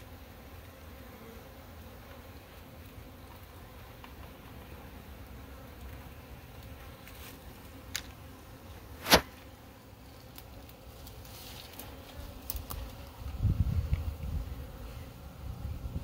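Honey bees buzzing steadily around the hive. About eight and nine seconds in come two sharp knocks as the hive lid is handled, the second loud, and a low rumble starts near the end.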